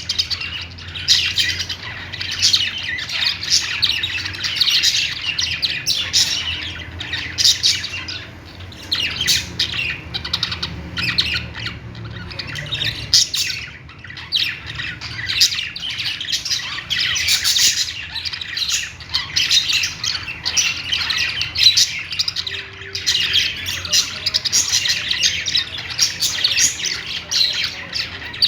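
Several pet budgerigars chirping and chattering continuously, a dense run of short, high calls.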